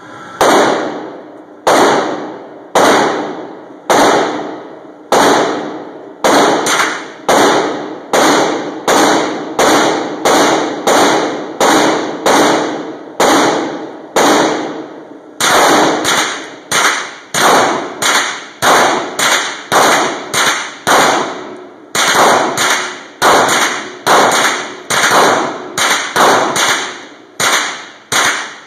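AR-15 rifle firing a long string of semi-automatic shots, spaced roughly half a second to a second apart with two brief pauses. Each shot rings and echoes off the concrete walls of an indoor range.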